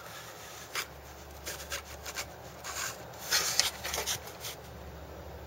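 Handling noise: a hand and a handheld camera moving around a small collectible figure on its base, giving soft rubs and a few light taps scattered through.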